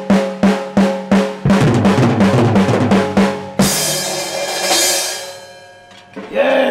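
Acoustic drum kit solo: even, ringing tom strikes about three a second, then a fast roll across the drums, ending on a cymbal crash about halfway through that rings out and fades. A short vocal sound comes near the end.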